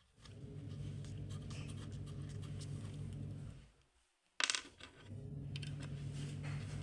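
Electric screwdriver driving the mounting screws of a subwoofer driver into a wooden speaker box: the motor runs steadily for about three and a half seconds, stops, a sharp click follows, and it runs again for the next screw.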